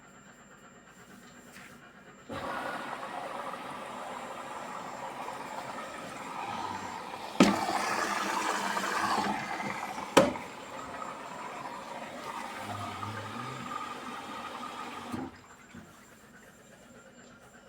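Hisense WF1Q8041BW washing machine filling with water. A rushing inflow starts suddenly about two seconds in, is cut by two sharp clicks partway through, and stops abruptly a couple of seconds before the end.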